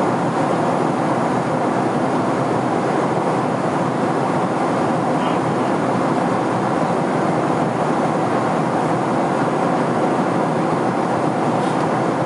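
Steady rushing cabin noise of a Boeing 767-400ER in cruise, from its engines and the airflow over the fuselage, heard from a passenger seat.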